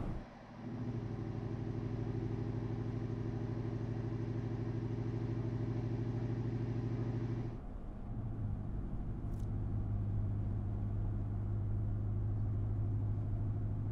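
5.7-litre Hemi V8 of a Ram 1500 idling steadily through a Borla Stinger S-Type cat-back exhaust, first heard at the tailpipe. About seven and a half seconds in it cuts to the same idle heard from inside the cabin, which is duller and carries less hiss.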